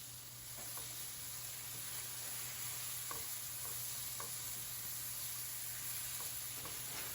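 Mushrooms and onions frying in butter in a pan, sizzling steadily with a few faint pops and clicks scattered through.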